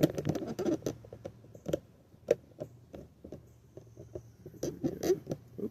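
Irregular clicks, clinks and light knocks of bicycle parts and tools being handled while a BMX stem is fitted to the front end.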